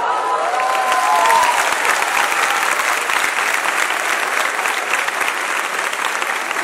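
Audience clapping steadily, with a few cheering voices in the first second or so.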